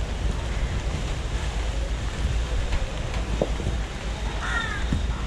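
A crow gives a short, falling caw about four and a half seconds in, over a steady low rumble of wind and surf.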